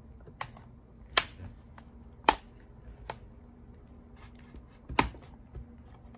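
Plastic snap clips of an HP 15 laptop's bottom case cover popping loose as a pry tool works along its seam: about five sharp, irregular clicks, the loudest about a second, two seconds and five seconds in.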